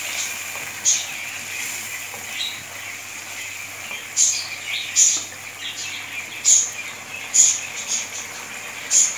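Eggs and potatoes frying in a thick masala in a nonstick kadai: a steady sizzle with a sharp spattering pop every second or so, about six in all.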